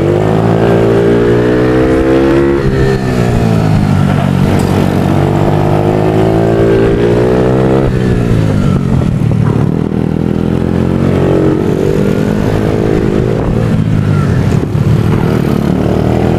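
Motard race bike's engine heard from on board at racing revs. Its pitch climbs steadily, drops sharply about three seconds in and again about eight seconds in, then rises and falls repeatedly.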